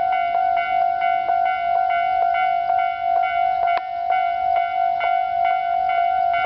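Japanese level-crossing alarm: the standard electronic crossing bell of a Tobu Railway crossing, ringing a repeating clang at an even beat of about three strikes a second, each tone ringing on into the next.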